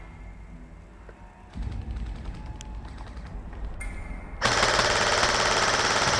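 Airsoft electric gun firing one long burst on full auto, close to the microphone, starting a little past halfway and lasting about two seconds. Before it there is a low rumble of the camera being moved.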